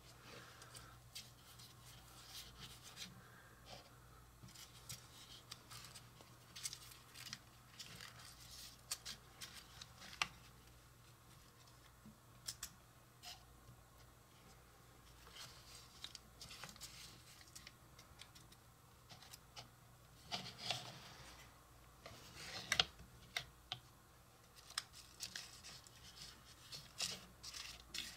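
Faint scratching and rustling of fingers rubbing softened butter onto parchment paper lining a small metal pan, with scattered light clicks and a few louder scrapes about two-thirds of the way through.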